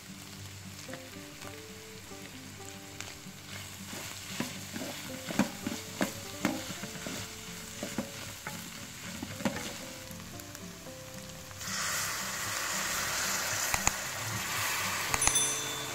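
Minced meat and green beans frying in a large aluminium pot, stirred and scraped with a wooden spoon, with knocks of the spoon against the pot. About twelve seconds in, water poured from a kettle into the hot pot sets off a loud, steady hissing sizzle.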